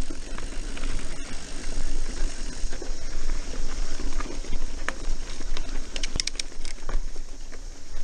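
Mountain bike riding over dirt singletrack: a steady rush of tyre and low rumbling noise, with rattles and clicks from the bike over bumps and a quick cluster of sharp clicks about six seconds in.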